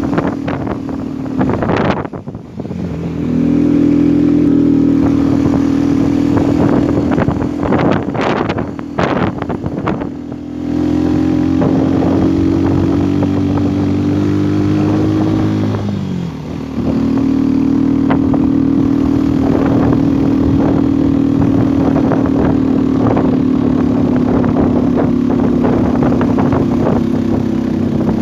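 Vehicle engine running steadily, its pitch shifting a few times: it drops briefly about two seconds in, changes again about ten seconds in, and falls then settles to a new steady note about sixteen seconds in.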